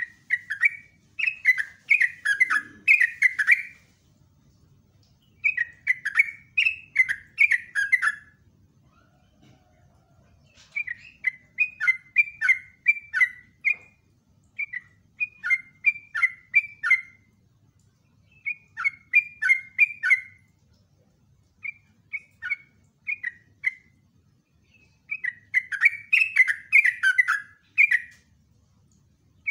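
Yellow-vented bulbul singing its long chattering 'ropelan' song: seven phrases of quick, rapidly repeated notes, each two to three seconds long, with short pauses between them.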